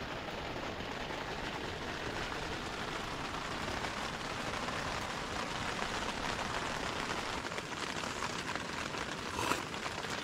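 Steady rain drumming on the tent fly, heard from inside the tent. A single short knock sounds near the end.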